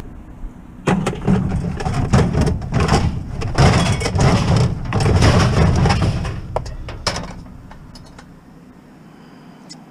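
A scrapped microwave oven being shoved into a vehicle's cargo area packed with other scrap, scraping and clunking against the load for about five seconds, then a couple of lighter knocks.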